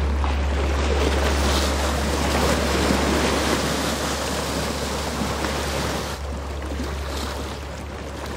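Workboat's engine droning low and steady under the rushing of its bow wave and wash. The sound drops and dulls about six seconds in.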